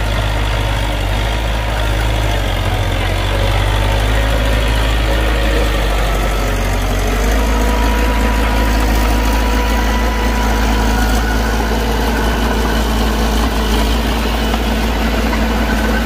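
Diesel engine of heavy earthmoving equipment running steadily, with a deep low hum; its note shifts slightly about seven seconds in.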